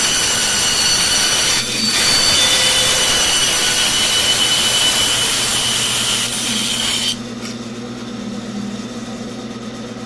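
Bandsaw blade cutting through a thick wooden block: a steady, loud sawing noise with a high tone over it. About seven seconds in the cut ends suddenly as the blade leaves the wood, and the saw runs on freely with a quieter, lower hum.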